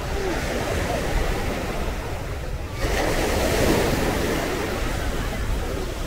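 Mediterranean surf washing onto a sandy beach, a steady rush of breaking waves. The rush swells suddenly about three seconds in as a larger wave breaks.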